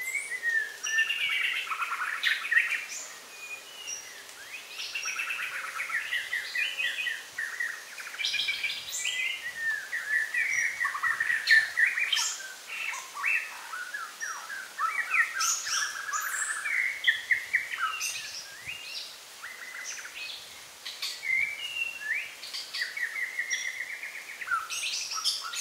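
Many small birds chirping and trilling without a break, their calls overlapping, with quick rapid trills and sharp upward and downward pitch sweeps.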